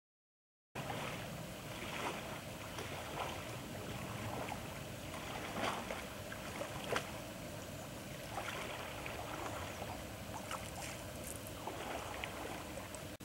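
Kayak paddling on a lake: paddle strokes splashing and water lapping close to the surface, irregular splashes over a steady rush, starting about a second in.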